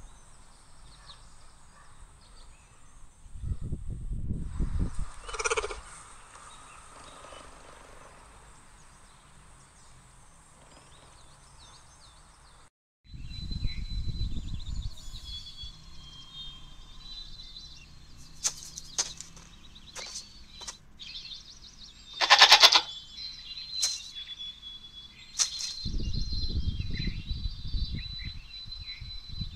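Recorded animal sounds played by augmented-reality 3D animal models. The main one is a loud, wavering goat bleat about two-thirds of the way in, among scattered clicks and low rumbling noise.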